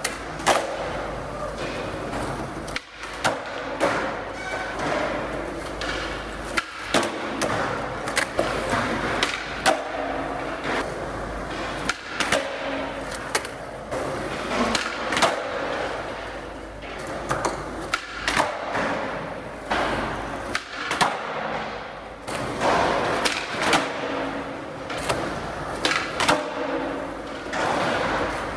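Skateboard wheels rolling on smooth concrete, broken by many sharp pops of the tail and clacks of the board landing during flat-ground tricks, under a concrete parking-garage deck.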